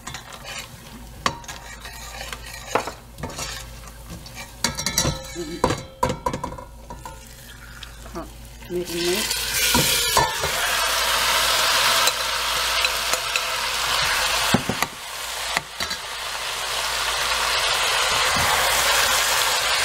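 Metal spoon stirring, scraping and clinking against a stainless steel pot of peanuts, shallots and star anise in hot oil. About nine seconds in, a loud steady sizzle starts as the marinated pork shoulder goes into the hot oil, with the spoon still knocking now and then.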